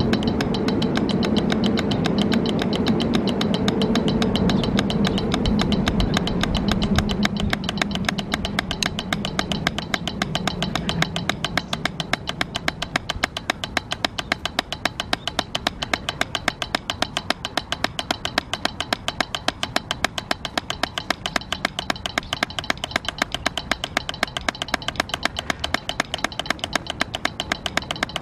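Drumsticks striking a rubber practice pad in an even, steady stream of fast strokes, stroke-technique practice at 110 bpm. A low rumble sits under the strokes for roughly the first ten seconds and then fades away.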